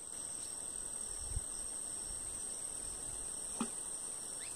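Insects, crickets by their sound, trilling steadily on one high note, with a brief low thump about a second and a half in.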